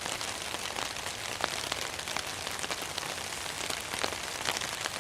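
Light rain, a little more than a drizzle, hitting a UGQ Winterdream silicone-coated polyester (sil-poly) hammock tarp, heard from underneath: a steady soft hiss with many scattered single drop ticks, extremely low.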